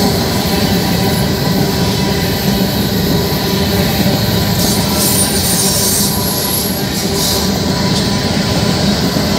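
Freight cars of a BNSF manifest train rolling past close by: a steady, loud rumble of steel wheels on rail, with brief high wheel squeals about five and seven seconds in.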